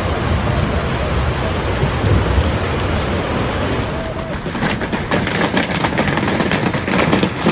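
Heavy rain pouring down, with a low rumble about two seconds in. About halfway through it gives way to a dense clatter of hailstones hitting hard surfaces.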